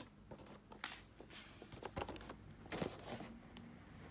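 Cardboard toy box being handled: a string of light knocks and taps with short scrapes and rustles as hands grip and turn it, the sharpest knock about three quarters of the way through.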